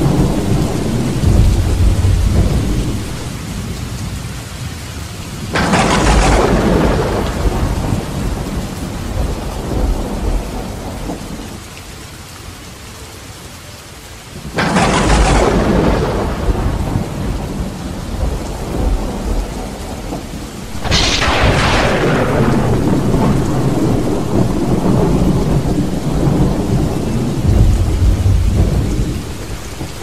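Thunderstorm with heavy rain: a steady hiss of rain under rolling thunder, with three sharp thunderclaps, at about five and a half, fourteen and a half and twenty-one seconds in, each breaking into a long low rumble.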